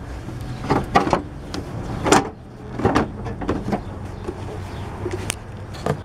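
Irregular knocks and clicks of car parts being handled and fitted at the front end of the car, about eight in six seconds, with a low steady hum under them through the middle.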